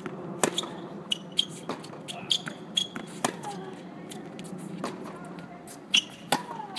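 Tennis rally on a hard court: a series of sharp pops as racket strings strike the ball and the ball bounces, with short high squeaks from tennis shoes on the court surface. The loudest hits come about six seconds in.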